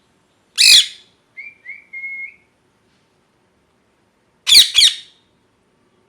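Indian ringneck parakeet calling: a loud harsh squawk, then three short, quieter whistled notes, then a loud harsh double squawk.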